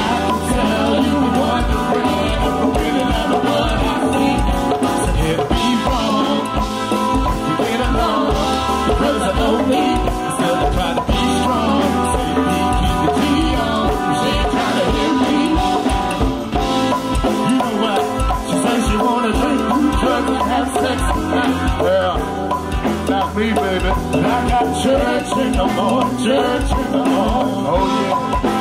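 Live band playing an instrumental groove: a drum kit keeps a steady beat under a dense mix of pitched instruments.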